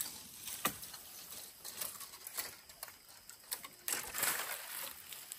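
Footsteps crunching over dry leaf litter and twigs: irregular crackles and rustling, busiest about four seconds in.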